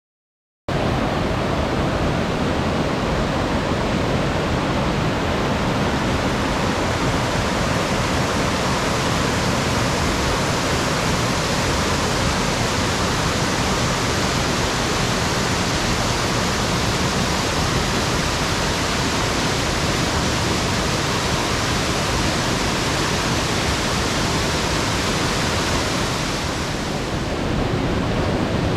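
Tateshina Great Falls waterfall: a steady rush of falling water, cutting in abruptly under a second in. Near the end the higher hiss dulls briefly.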